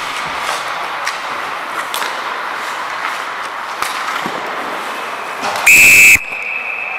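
Referee's whistle blown in one short, very loud shrill blast about six seconds in, to stop play, with a fainter steady tone at the same pitch carrying on after it. Before it there is steady rink noise with scattered sharp clicks of sticks and puck.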